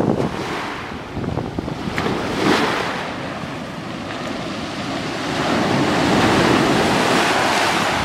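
Small sea waves breaking and washing up over a pebble beach, the surf swelling louder in the second half as a wave runs up the shore. Wind buffets the microphone.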